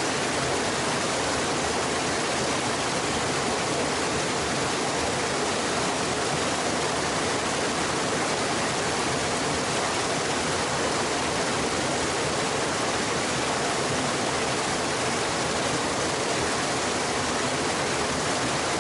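A steady, even rushing noise that cuts in abruptly and holds unchanged, with no crackles or knocks in it.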